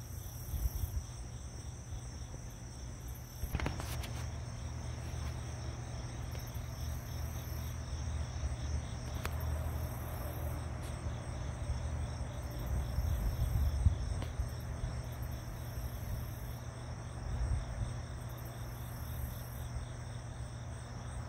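Insects chirping steadily in a dense chorus, with a low rumble on the microphone and a few brief clicks.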